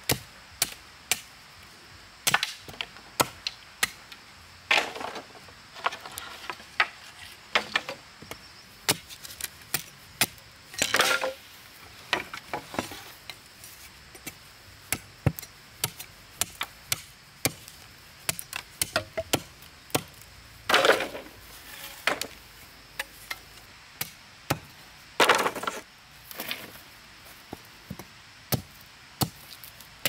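Irregular sharp chopping knocks, a blade or tool striking something wooden, sometimes singly and sometimes in quick runs. A few longer scraping or rustling sounds come between them.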